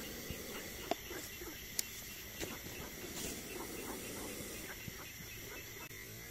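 Faint outdoor night background: a steady high drone with scattered soft ticks and a few small clicks.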